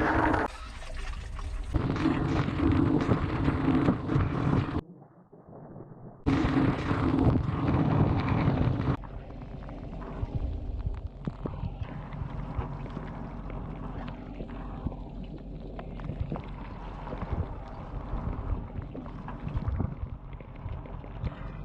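Dishwasher running, heard from inside the tub: water from the spray arms loudly drenching everything, breaking off for about a second and a half. It then settles into a quieter, steady wash of water over a low hum.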